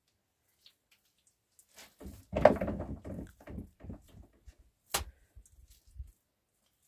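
Wet mud plaster being pressed and smeared by hand onto an earthen wall: a run of dull pats and scuffs starting about two seconds in, loudest at first, with one sharp click about five seconds in.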